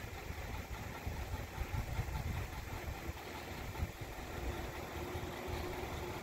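Ford F-250 Super Duty pickup's engine idling, under an irregular low rumble from wind on the microphone.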